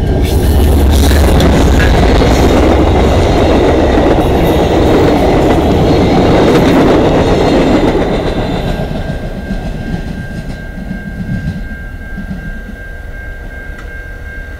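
VIA Rail passenger train led by a P42DC diesel locomotive passing close by at speed, with wheel noise on the rails. Loud for the first eight seconds or so, then fading as the train moves off into the distance.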